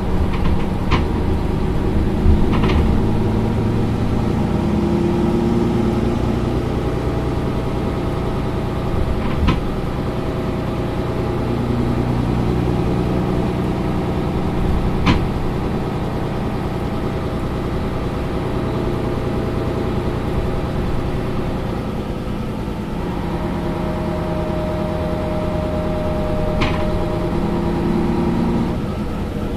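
Mercedes-Benz Citaro Facelift LE city bus's diesel engine idling steadily, heard from behind the bus, with a few short sharp clicks now and then.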